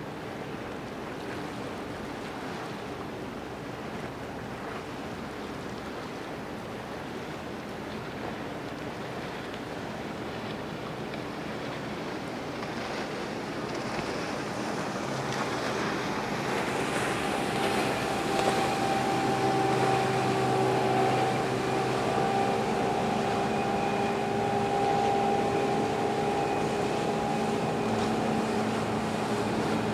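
Water wash and rushing noise from a passing container ship, joined about halfway through by a steady drone of ship engines with several held tones, growing louder as the vessels come closer.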